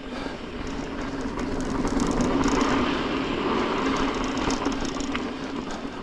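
Mountain bike rolling fast down a dirt singletrack: tyres rumbling over the ground while the bike rattles and clicks over roots and bumps, louder from about two seconds in.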